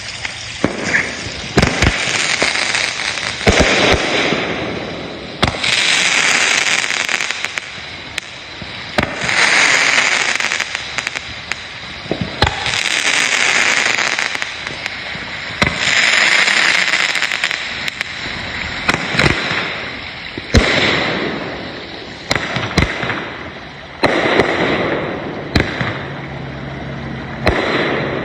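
Consumer fireworks going off in a continuous series: sharp bangs, with a swell of crackling every three to four seconds.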